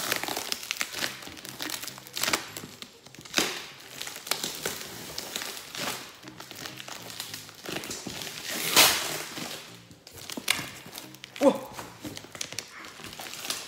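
Yellow plastic wrapping and packing tape being torn and crumpled off a cardboard shipping box in irregular rustling rips, one louder rip a little before the nine-second mark. Soft background music runs underneath.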